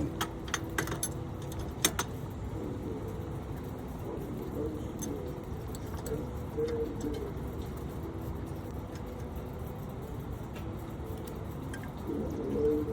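A few sharp metallic clinks of brake parts and tools being handled in the first two seconds, then a dove cooing on and off in the background.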